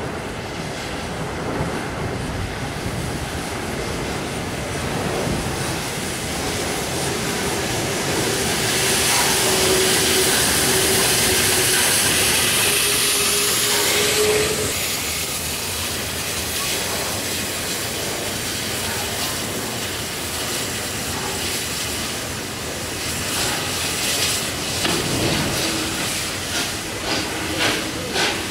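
Peppercorn A1 Pacific steam locomotive 60163 Tornado passing with its train of coaches: a steady rumble of wheels on the rails, with a loud hiss of steam for several seconds as the engine goes by. Near the end comes a run of regular beats.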